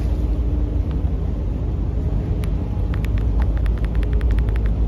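A steady low rumble, with a quick run of sharp clicks in the second half.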